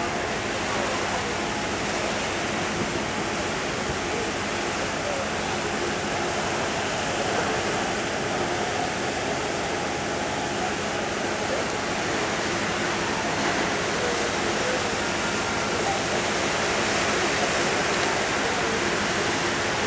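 Steady rushing of seawater churned up by the ferry's propellers as the ship pulls away from the quay.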